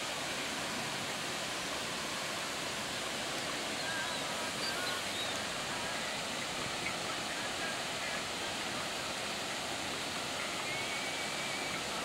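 Steady, even outdoor hiss with a few faint, short high chirps.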